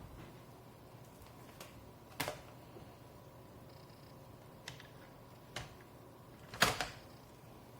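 Scattered light clicks and taps of small hardware being handled while a laptop SSD is screwed in place, with two louder knocks, one about two seconds in and one near the end.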